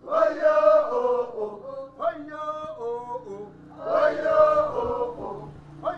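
Men's voices chanting, in phrases that start about every two seconds.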